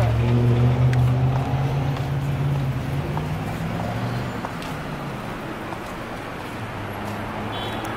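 City street traffic: a nearby vehicle's engine hums steadily for the first four seconds or so, then fades away, leaving steady road noise.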